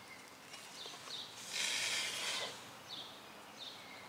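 Aerosol brake cleaner sprayed in one short hiss of about a second, about a third of the way in, with a few faint bird chirps around it.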